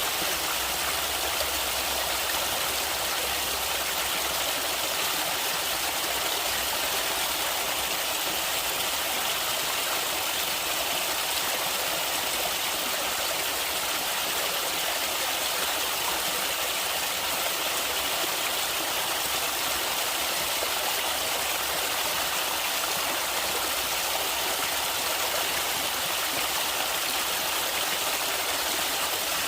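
Running water of a stream, a steady, even rush that is bright and hissy, with little low rumble.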